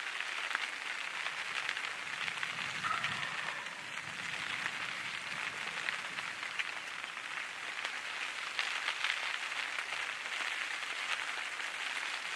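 Steady rainfall, with many small drops pattering in a continuous hiss.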